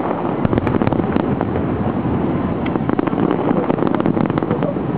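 Fireworks crackling and popping: a rapid run of sharp pops from crackling stars, densest about four seconds in, over a steady low noise.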